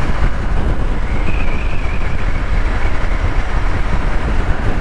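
Hero Xpulse 200 motorcycle riding at highway speed, heard from the rider's helmet: a steady low rumble of wind on the microphone with engine and road noise.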